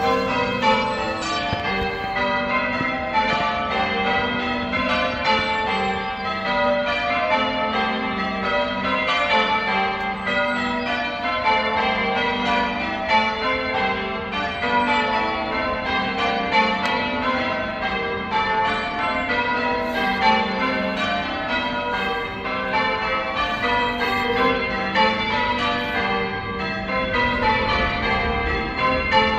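Church bells ringing: several bells struck one after another in a steady, continuous run, their tones overlapping as each rings on.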